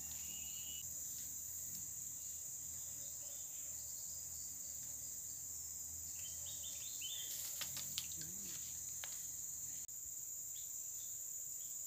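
Steady high-pitched insect chorus of crickets or cicadas, with a few short chirps near the start and about seven seconds in.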